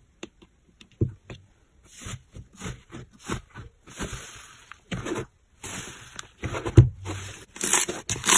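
Slime being squeezed and pressed by hand: a run of irregular wet clicks, pops and crackles that grows louder near the end.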